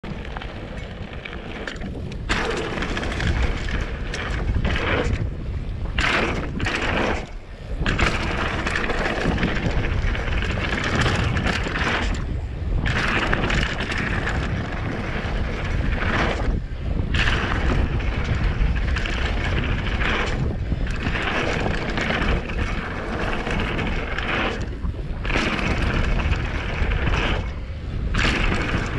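Mountain bike ridden fast down a dirt trail: tyres rumbling over dirt and the bike rattling, with wind buffeting the microphone. The noise drops away briefly several times.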